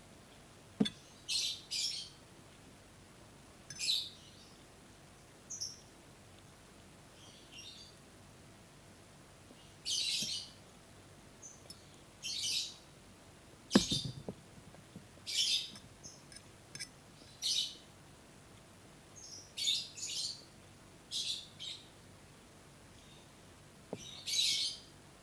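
Close-miked eating sounds from a mukbang of fried instant noodles and fried eggs: short, irregular wet mouth noises of chewing and slurping, with a few sharp clicks, the loudest about halfway through.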